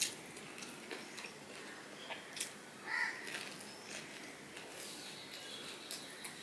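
Soft hand-eating sounds: fingers mixing rice and picking at fried hilsa fish on a paper plate, with chewing and a few small clicks. A short pitched call comes about three seconds in.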